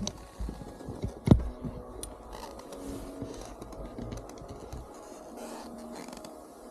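Snowboard sliding on snow: a low scraping rumble with scattered clicks and knocks, the loudest a sharp knock just over a second in. The rumble fades out a little before five seconds.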